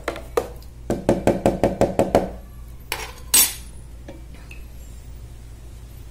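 Metal spoon stirring hydroponic nutrient solution in a plastic pitcher, clinking against the sides in a quick run of about six strokes a second. Two louder separate knocks follow about a second later.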